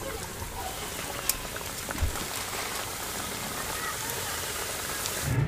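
Samosas deep-frying in hot oil in a metal pot: a steady sizzling hiss of bubbling oil, with a couple of sharp pops, cutting off just before the end.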